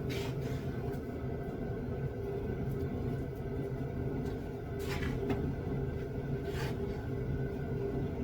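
A steady low mechanical hum and rumble, with a few short hissing sounds about five and six and a half seconds in.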